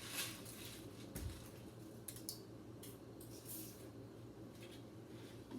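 Faint kitchen handling noises over a low room hum: a few short, soft rustles and light clicks as dry rice, a measuring cup and packaging are handled at the crock pot.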